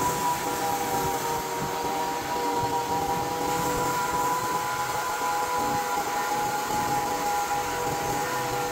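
Portable band sawmill running under load, its engine and band blade cutting through a white oak log with a steady whine.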